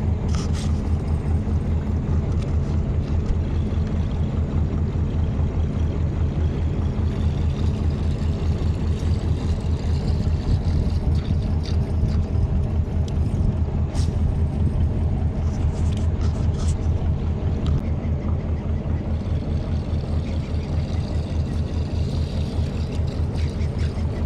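Boat engine running steadily under way, a continuous pulsing drone, with a few brief clicks over it.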